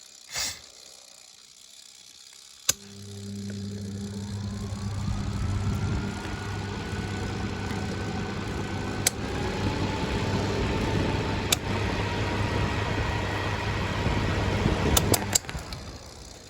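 Small 12-inch box fan switched on with a click about three seconds in: its motor hums and spins up, with a whine rising in pitch and the rush of air growing for a few seconds before it settles into steady running. Another click comes about nine seconds in, and near the end a few clicks and the motor hum stops.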